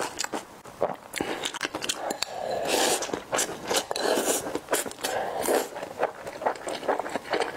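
Close-miked eating of noodles and rice: wet chewing and mouth clicks, with longer noisy slurps as food is drawn in from the bowl about two and a half and four seconds in.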